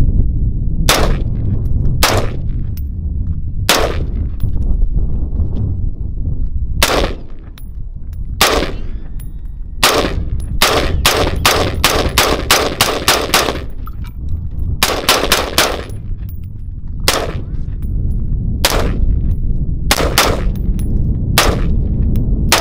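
Semi-automatic AR-15 rifle in .223 Wylde with a 16-inch barrel, firing sharp single shots, then a quick string of about nine shots at roughly three a second, a short cluster of four, and more scattered shots.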